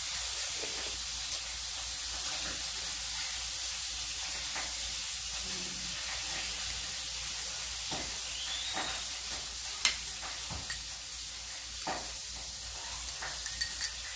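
Metal spoon clicking and scraping against a balut eggshell and plate, scattered light taps with the sharpest about ten seconds in, over a steady background hiss.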